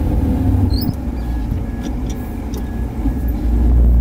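Mercedes-Benz Axor 2528 dump truck's diesel engine running under way, heard inside the cab as a steady low rumble, with a few light knocks and rattles from the cab as it shakes. It grows louder near the end.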